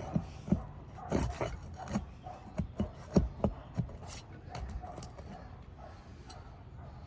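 Sharp knocks and scraping on asphalt roof shingles as a damaged three-tab shingle is worked loose and its nails prised out: a quick run of knocks for about four seconds, then quieter scraping.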